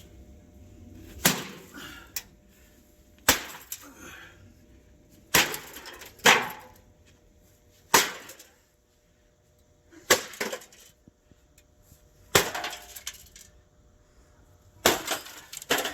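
A 16-pound sledgehammer smashing the metal body of a microwave oven. About nine heavy blows come roughly two seconds apart, each followed by a brief rattle of breaking parts.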